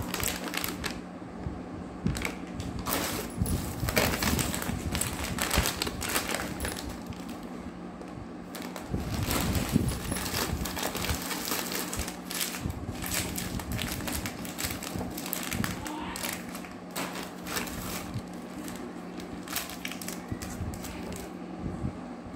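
A plastic carrier bag and plastic-wrapped grocery packets rustling and crinkling as they are handled and pulled out, in irregular crackles and taps.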